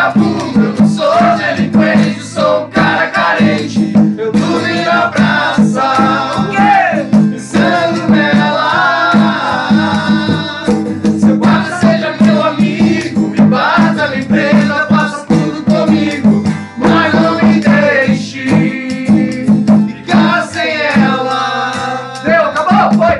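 Several men singing a Portuguese-language love song together to a strummed acoustic guitar, with a rattling percussion beat.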